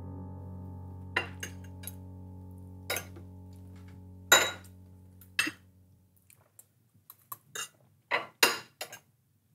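Cutlery clinking against china plates and dishes at a dinner table, in scattered sharp clinks, the loudest about four seconds in and a quick run of them near the end. A held music chord fades out under the first half.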